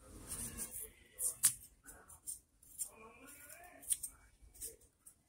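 Kitchen knife scraping and paring the skin off a piece of ginger on a plastic cutting board: a series of short, sharp, irregular scrapes.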